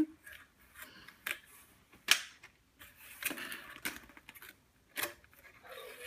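Flattened cardboard box being bent and folded by hand, its flaps creasing and scraping: a series of short, sharp scrapes and snaps, the loudest about two seconds in.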